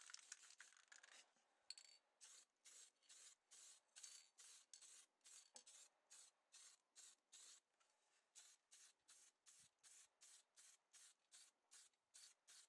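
Paint spraying onto small model-car parts in short, rapid hissing bursts, about two or three a second.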